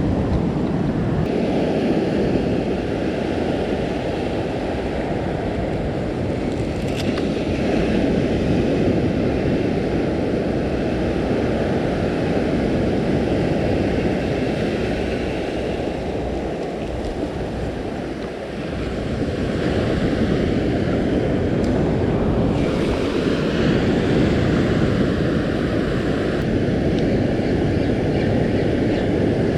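Wind rumbling on the microphone over the steady wash of surf on the beach, with a short lull a little past the middle.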